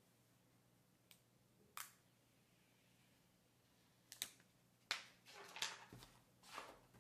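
Quiet handling of a new smartphone: a couple of light clicks, then from about four seconds in a run of short crinkles and rustles as the thin plastic protective film is peeled off the screen.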